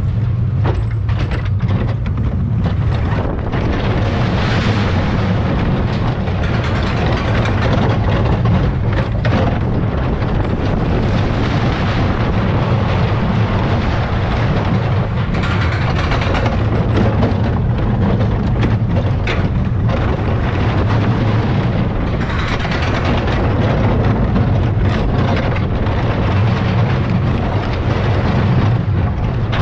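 Carnival spinning ride heard from on board: a steady, loud low rumble from the running ride, with a rushing noise and scattered rattles and clicks throughout.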